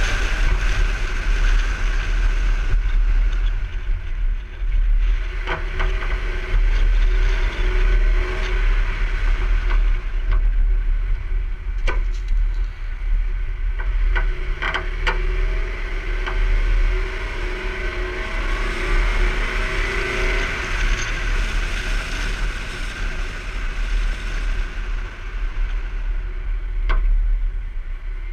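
A car driving steadily along a road, with a continuous low rumble of road and engine noise. A few short, sharp knocks are scattered through it.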